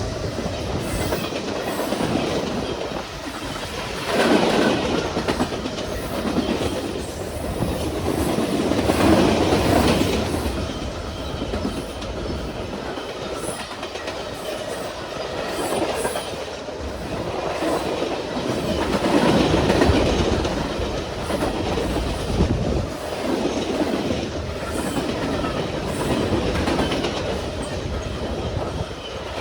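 Freight cars of a Norfolk Southern manifest train rolling past at about 50 mph. The wheel-and-rail noise is continuous, swelling and easing every few seconds.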